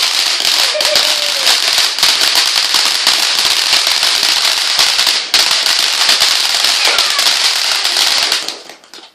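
Firework crackling: a dense, rapid stream of sharp cracks, with a short break about five seconds in, dying away near the end.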